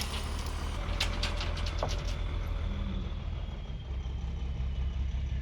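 Dump truck engine running with a steady low rumble, as a few last stones clatter out of the tipped bed between about one and two seconds in.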